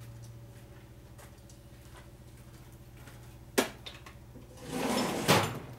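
Workshop handling noises over a steady low hum: one sharp click about three and a half seconds in, then about a second of scraping ending in a sharp knock.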